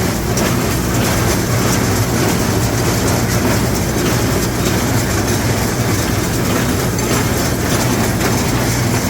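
LS XR4150 tractor's diesel engine running steadily under load, driving a John Deere hay baler whose mechanism clatters as it bales.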